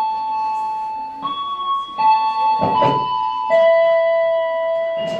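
Slow melody played on a keyboard with a piano-like tone, one held note after another, changing pitch about once a second. A brief thump sounds about halfway through.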